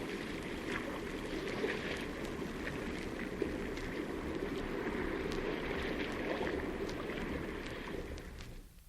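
Steady wash of sea water in a cave, with scattered small clicks and splashes, fading out near the end.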